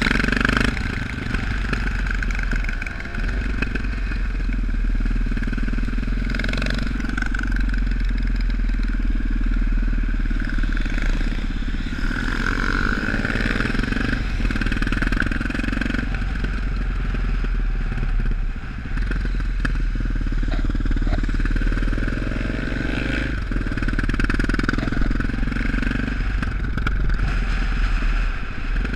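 Supermoto motorcycle engine running under way, loud and continuous, its note rising again and again as it accelerates through the gears.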